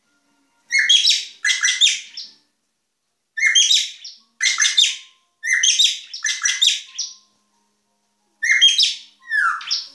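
Caged drongo calling: eight short, rasping phrases, mostly in pairs, the last one sliding steeply downward in pitch near the end.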